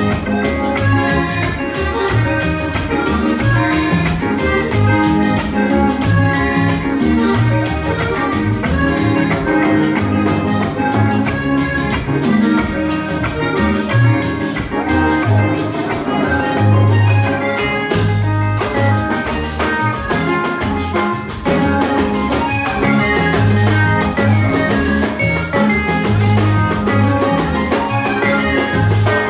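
Instrumental passage by a conjunto band: drums and bass keep a steady beat under a melody of quick pitched notes.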